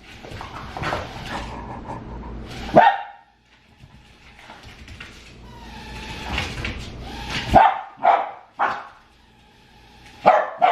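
A dog barking: one sharp bark about three seconds in, then a quick run of barks from about seven and a half seconds, with a steady hiss between them.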